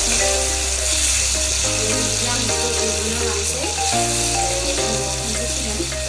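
Chunks of green capsicum sizzling in hot oil in an iron kadai while a steel ladle stirs them, a steady hiss. Background music with a bass line that changes about every second plays over it.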